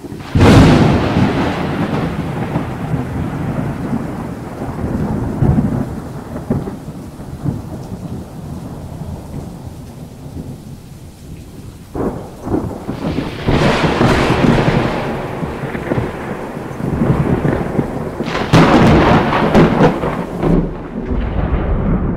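Thunder: a loud clap about half a second in that rolls off into a long low rumble, then a sharp crack about halfway through followed by two more loud rolling peals near the end.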